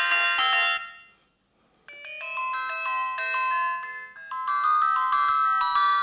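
Panasonic KX-TF200 mobile phone playing previews of its built-in ringtones. One electronic ringtone melody dies away about a second in, and after a short pause the next ringtone starts, a melody of distinct notes.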